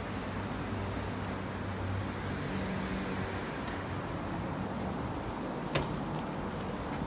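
Steady road traffic noise, vehicle engines and tyres, with one sharp click about six seconds in.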